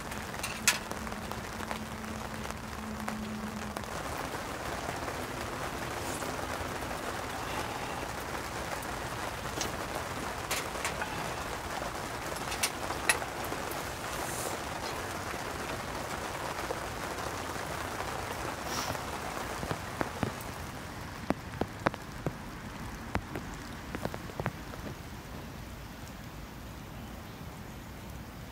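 Steady rain falling on a tent, with scattered sharp ticks of drops that come more often after about twenty seconds in.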